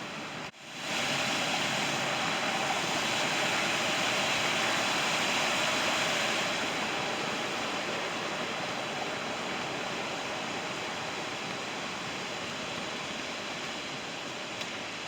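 Steady rushing of running water. A brief dropout about half a second in, louder for the next several seconds, then slightly softer.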